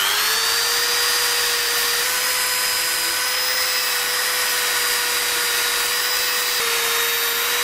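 Electric belt file running at steady speed with a constant high motor whine, its abrasive belt hissing as it files a flat metal bar.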